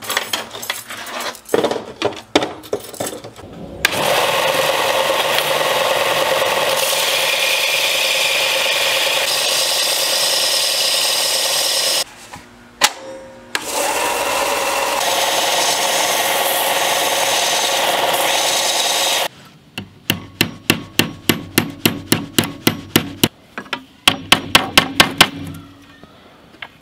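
Steel rods clinking as they are handled on a workbench, then a Ryobi 4×36 belt sander grinding steel rods in two long stretches with a short break between them. Near the end a hammer strikes quickly and repeatedly, about three blows a second, on a wooden spear shaft fitted with steel tines on a small anvil.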